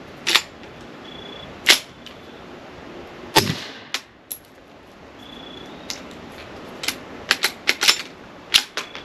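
Gunshots: a few sharp cracks, the heaviest about three and a half seconds in, then a quick run of lighter cracks near the end.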